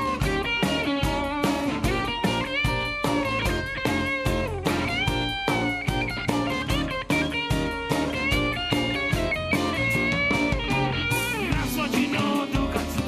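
Live band playing an instrumental passage, a Telecaster-style electric guitar playing a lead line with bent notes over drums and bass. The cymbals come in brighter near the end.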